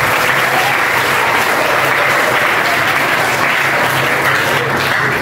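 A large crowd of students applauding: dense, steady clapping.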